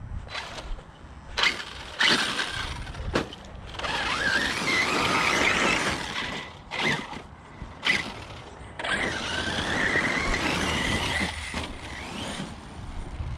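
The brushless electric motor of an Arrma Notorious RC truck (a Spektrum 1250kv system on 8S) whining as it is driven hard, in two long runs whose pitch wavers and rises. Several sharp knocks come in between, mostly in the first half.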